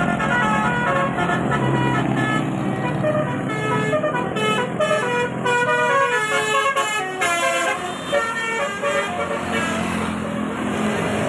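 A 'telolet basuri' multi-tone bus horn playing a quick tune of short notes that step up and down, thickest in the middle, over the steady low hum of an engine.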